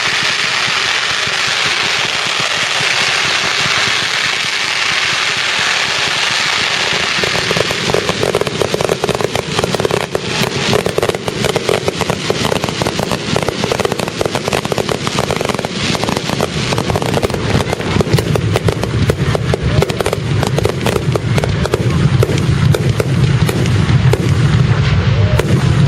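Fireworks display: a dense crackling hiss, then from about eight seconds in a rapid barrage of sharp cracks and bangs that grows louder, with a deep rumble of booms toward the end.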